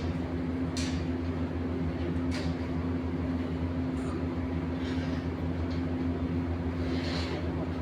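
A motor or engine running steadily with a constant low hum, with brief hissing or scraping noises over it every couple of seconds.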